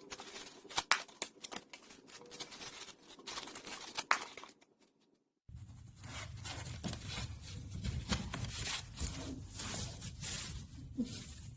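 Scraping, scratching and tearing sounds of hand work patching a small hole in a plaster wall, with sharp clicks throughout. It cuts out completely for about a second midway, then goes on, denser.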